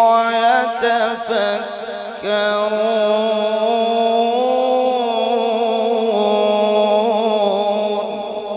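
Solo Quran recitation in tajwid style by a male qari: the drawn-out end of the phrase "wa 'ala junubihim" sung as one long melodic line, with quick ornamental turns in the first two seconds, a brief breath, then a long held note that fades near the end.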